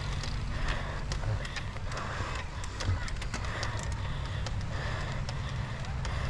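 Cyclocross bike ridden over rough ground, with rapid irregular clicks and rattles over a steady rumble of wind on the microphone.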